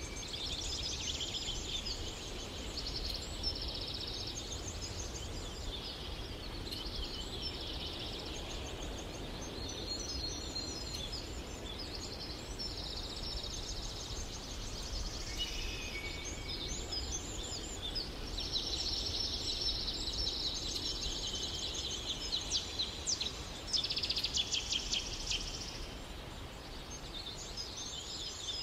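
Birds chirping and trilling in a continuous high-pitched chorus, with a faint low hum underneath.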